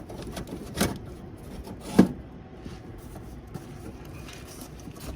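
Rustling as a boxed toy train car is handled and unpacked, with two knocks, a light one just under a second in and a sharper, louder one about two seconds in.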